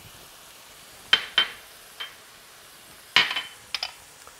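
Squash and roasted red peppers sizzling faintly in an enamelled cast-iron pan while salt and pepper go on, with about six sharp clinks that each ring briefly: two just past a second in, one at about two seconds, and a cluster from about three seconds.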